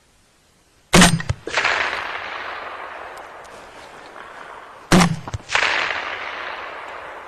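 Two rifle shots about four seconds apart, one about a second in and one about five seconds in, fired at wild boar. Each shot is followed by a second sharp crack about half a second later and a long rolling echo that fades over several seconds.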